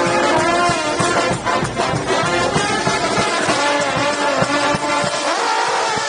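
Street brass band playing: horns carrying a bending melody over regular drum hits.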